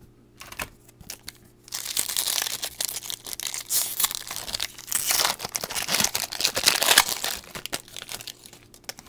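Foil wrapper of a Topps Chrome basketball card pack being torn open and crinkled by hand. A few light clicks come first, then dense crinkling starts about two seconds in and goes on for about six seconds.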